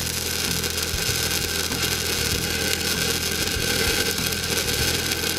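Stick welding arc of a 1/8-inch 6010 electrode burning at 70 amps DCEP on the root pass of a steel pipe joint: a steady, dense crackle.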